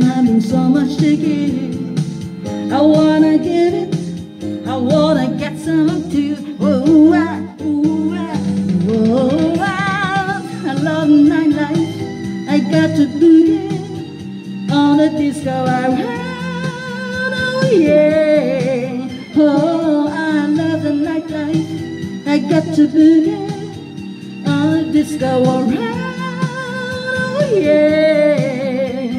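A woman singing into a handheld microphone over backing music, holding long wavering notes with vibrato.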